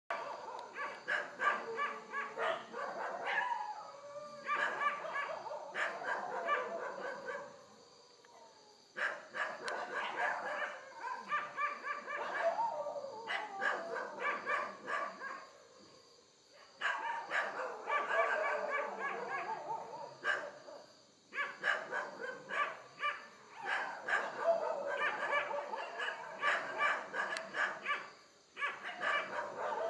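Dogs barking in rapid, continuous volleys, mixed with howls that slide down in pitch. The barking breaks off briefly a few times and then starts up again.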